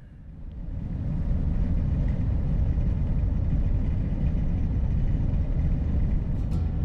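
Low rumble of a van driving on the road: engine and road noise that swells over the first second, then holds steady.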